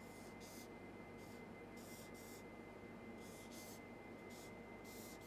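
Felt-tip marker drawing on flip-chart paper: a series of faint, short, scratchy strokes in quick irregular groups, over faint room tone.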